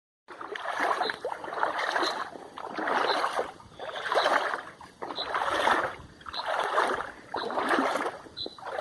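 Footsteps at a slow, steady walking pace, about one step a second, each step a drawn-out scuffing or swishing crunch rather than a sharp click.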